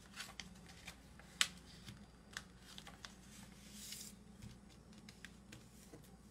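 A sheet of paper being folded and creased by hand into a paper dart airplane: faint crinkles and taps, the sharpest about one and a half seconds in, and a soft rub of fingers sliding along the fold near four seconds in.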